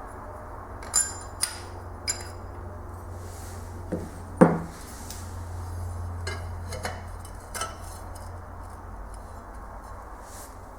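Metal hand tools and bolts clinking during engine assembly: a handful of scattered sharp clinks and knocks, the loudest about four and a half seconds in, over a steady low hum.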